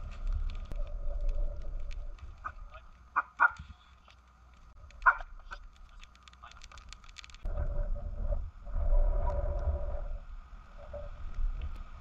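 Dogs giving a few short, sharp barks, over small crackling clicks from a campfire of dry twigs. A low rumble fills the last few seconds.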